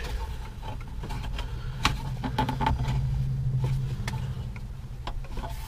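2002 Saturn SC2 dashboard trim and its clips being handled: a few light clicks and knocks, over a low steady hum.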